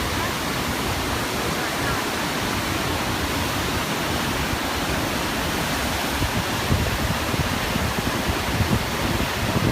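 Waterfall: a steady, dense rush of falling water, with some uneven low rumbling in the second half.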